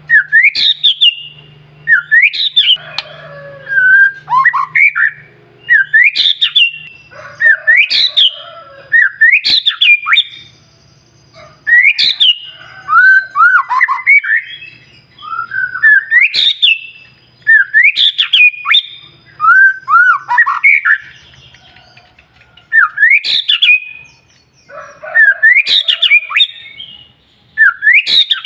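White-rumped shama (murai batu) singing in full song: varied phrases of whistles that sweep sharply up and down, mixed with clicks, coming about every two seconds.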